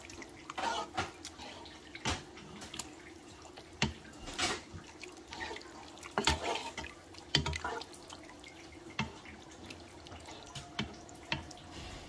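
A steaming pot of leafy greens in sauce simmering while a silicone spoon stirs it: irregular wet pops, bubbling and slopping.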